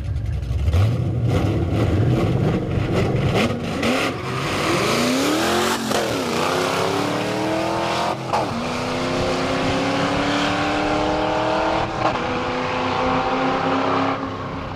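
Cars launching from a standing start in a drag race and accelerating hard down the road, the engine revving up through the gears with shifts about six, eight and twelve seconds in. It fades near the end as the cars pull away.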